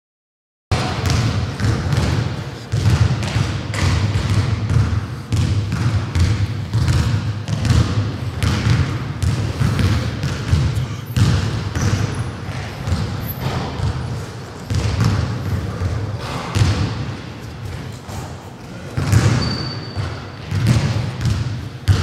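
Basketballs bouncing on a gym's hardwood floor, many overlapping thumps echoing in the hall. The sound starts suddenly about a second in.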